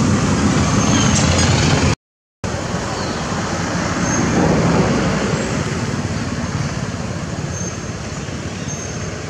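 Steady outdoor background noise, a low rumble with hiss above it, cut off completely for about half a second around two seconds in, then running on a little quieter.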